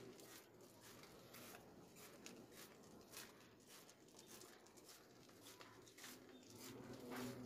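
Near silence with faint footsteps, about two a second, as someone walks on a paved alley path. A faint low hum rises near the end.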